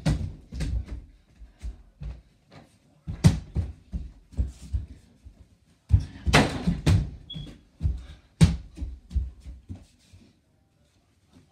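Mini basketball thudding against a door-mounted mini hoop and bouncing on the floor. It is a string of sharp knocks, some in quick runs that speed up as the ball settles.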